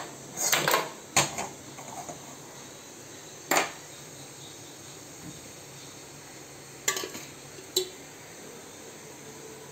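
Stainless steel kadai and steel ladle clinking and knocking, about half a dozen sharp metal knocks spread through, over the steady hiss of a lit gas burner.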